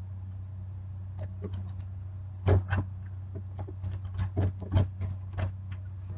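Steady low hum of a food truck running. Over it, a scatter of sharp clicks and knocks comes from about two and a half seconds in, the loudest near the start of that run and again near five seconds.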